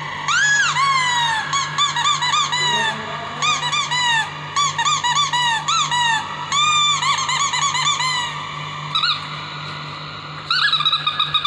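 Small long-haired dog whining: a rapid run of high-pitched whimpers, each rising and falling, several a second, turning into longer held whines near the end.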